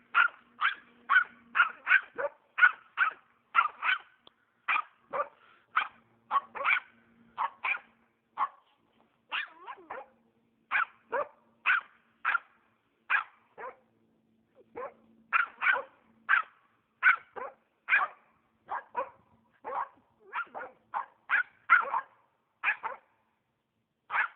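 A Norrbottenspets barking over and over at squirrels, as a bark-pointing spitz does to hold game. The barks are short and sharp, about two a second, with one short break partway through.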